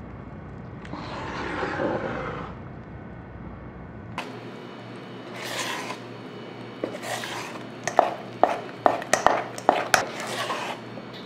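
A metal spoon stirring thick unniyappam batter and jaggery syrup in a stainless steel bowl: soft swishing and scraping, then from about eight seconds in a quick run of sharp knocks, about two or three a second, as the spoon beats the batter against the bowl.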